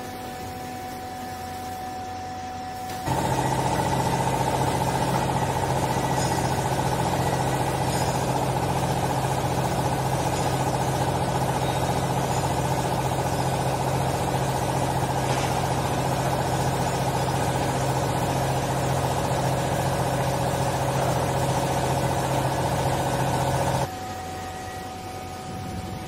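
A vertical hydraulic clothing baler's electric motor and hydraulic pump running steadily, starting abruptly about three seconds in and cutting off suddenly near the end, while the ram presses used clothing into a bale.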